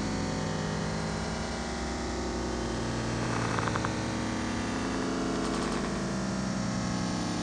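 Synth punk track: a dense, steady synthesizer drone, buzzing and noisy, with a brief flutter of rapid ticks about halfway through.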